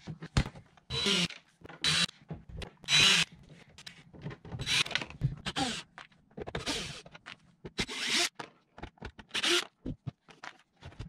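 Hard plastic cover of an RV power distribution panel being lifted off and handled: a run of short scraping and rattling noises, about one a second.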